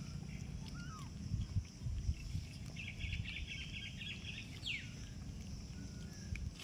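Outdoor ambience: a steady low rumble with scattered soft knocks and a steady high hiss, with a few short bird chirps and a fast trill about three seconds in.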